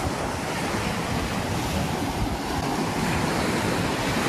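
Sea surf washing onto a beach, a steady rushing wash, with wind rumbling on the microphone.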